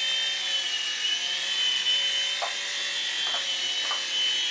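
Small remote-control toy helicopter flying, its electric motor giving a steady high whine over the buzz of the rotors, the pitch wavering slightly as it moves.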